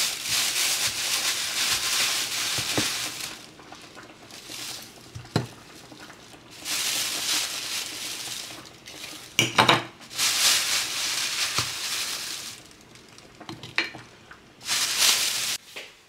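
Food preparation handling: several bursts of rustling, broken by a few sharp knocks and clunks, as frozen fish steaks are handled and set into a glass baking dish.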